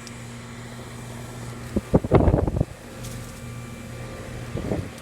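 Goodman central air-conditioner condensing unit running with a steady low hum from its compressor and outdoor fan. A loud rumbling burst about two seconds in and a smaller one near the end.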